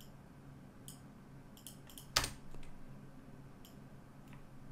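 Computer keyboard keys and mouse buttons clicking: a handful of scattered single clicks, the loudest about two seconds in.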